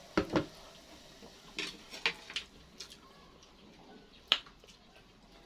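Close-up eating sounds: a handful of scattered, sharp smacks and clicks. The loudest come near the start and about four seconds in.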